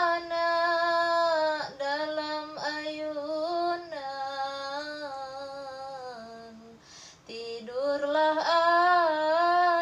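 A woman singing a Malay nandong lullaby solo, drawing out long, slightly wavering notes. Her voice sinks lower and fades about six seconds in, then swells back up about eight seconds in.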